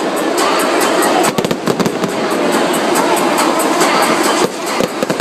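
Fireworks crackling and popping in rapid strings of sharp cracks, thickest about a second and a half in, over a steady din of music and crowd.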